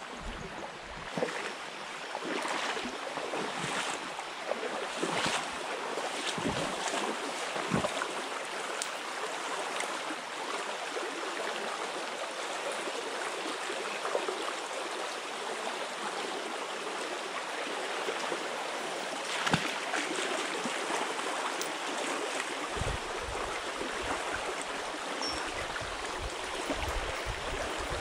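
Shallow stream rushing and rippling over stones, a steady even wash of water. Occasional low bumps come through it, and near the end there are low rumbles.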